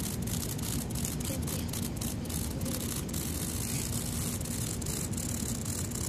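A cicada's steady distress buzz, its wings whirring against the grass as a wasp stings it.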